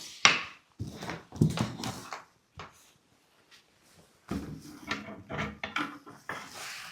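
Old wooden chest being opened: a sharp wooden knock, then several clattering knocks of the lid and fittings, a short pause, and more knocking and rubbing as the chest is handled.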